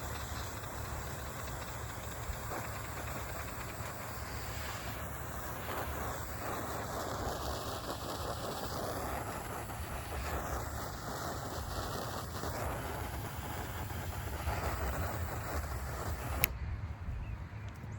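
Handheld torch flame running steadily with a rushing, rumbling sound as it heats heat-shrink tubing over crimped butt splices, then shut off with a click near the end.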